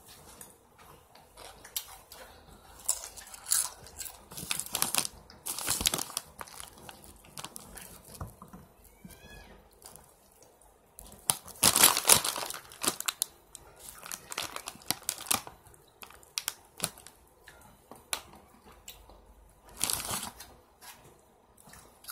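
Large plastic snack bag of Doritos Dinamita chips crinkling and rustling in irregular handfuls as a hand works in it, loudest about halfway through.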